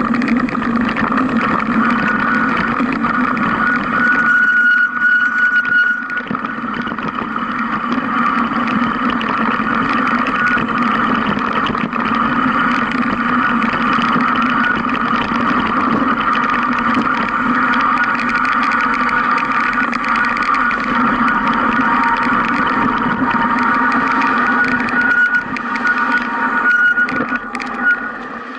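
Mountain bike ride noise picked up by the camera riding along with it: a steady rumble with a continuous hum. It drops away near the end as the bike comes to a stop.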